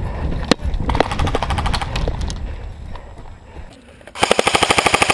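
Airsoft electric gun firing on full auto: a quieter rattle of rapid shots about a second in, then a loud burst near the end, about twenty shots a second for roughly a second. Movement over grass and wind on the microphone fill the rest.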